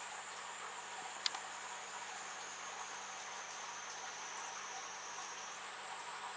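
Quiet room tone: a steady hiss with a thin, high-pitched whine that steps up in pitch near the end, and a single click about a second in.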